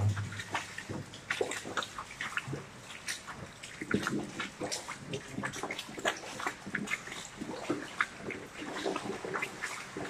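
Footsteps splashing irregularly through shallow water on the cobbled floor of a brick culvert, over the steady rush of an underground waterfall further down the tunnel.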